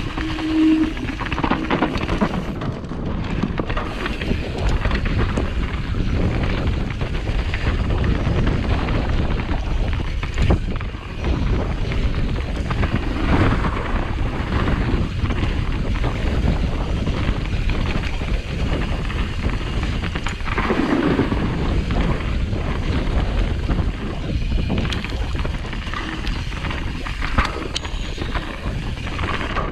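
Wind buffeting a GoPro action camera's microphone at speed, over the continuous rattle of a downhill mountain bike riding rough ground, with scattered knocks.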